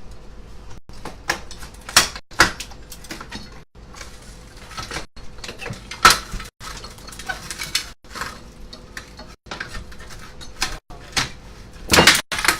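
Irregular knocks, clanks and scraping as pieces of an old window frame are pried loose and handled, with louder knocks about two, six and twelve seconds in.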